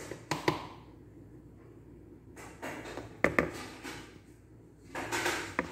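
Light taps and knocks against a mixing bowl as flour is added to cake batter: a couple of clicks near the start, two sharp taps a little past three seconds in, and a short rustling stretch with more clicks near the end.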